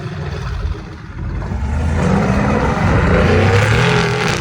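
Mercedes-AMG twin-turbo V8 accelerating. After a short dip, the engine note climbs from about a second and a half in, with the turbos' whistle and hiss over it, loudest near the end.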